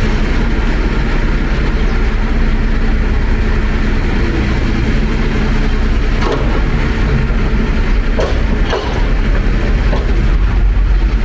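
Delivery truck's engine running steadily with a low rumble, with a few faint short sounds over it past the middle.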